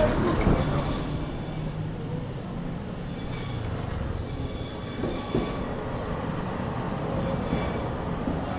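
Steady low rumble of vehicle traffic in a street.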